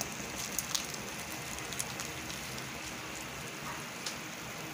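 Squid adobo simmering in its soy and vinegar liquid in an aluminium wok: a steady, rain-like bubbling hiss with a few faint ticks in the first couple of seconds.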